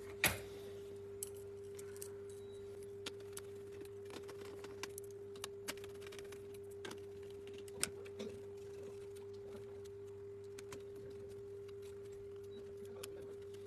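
Scattered small clicks and taps of laptop plastic parts and cables being handled and fitted during reassembly, over a steady low hum.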